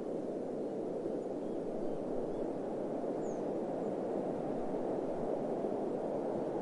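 Steady, muffled rushing of desert wind, even throughout with no gusts or other events.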